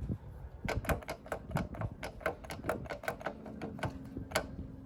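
Minibike wheel turning on a bad wheel bearing, giving a run of sharp clicks, about four or five a second, starting just under a second in. The owner suspects the bearing is too small for the wheel, or a fault in the rim, since only this side does it.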